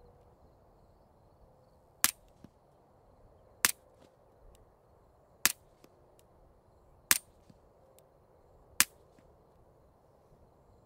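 Five suppressed 9mm pistol shots from a Beretta 92FS fitted with a CGS Group Kraken 9 suppressor, firing 165-grain subsonic Hush ammunition. The shots come about a second and a half apart, each a short sharp report, with a fainter tick after some of them.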